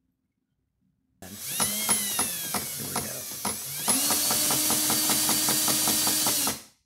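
Cordless drill driving the roller cam of a home-built diesel unit injector (Yanmar 186F pump with a GM HV6 nozzle): the drill whines as it spins up in uneven spurts, then runs steadily at about 450 rpm with a rapid, even ticking of the cam and pump strokes, about seven a second, before it stops suddenly.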